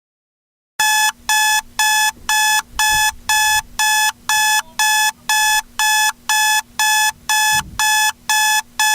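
Electronic alarm-clock beeping, starting about a second in: a shrill, evenly repeated beep, about two a second. It signals that the 30-minute countdown has reached zero.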